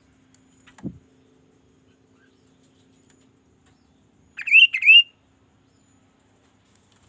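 Kaso-kaso (chestnut-capped babbler) giving a loud call of two quick swooping whistled notes, each dipping and rising, about halfway through. A soft thump comes about a second in.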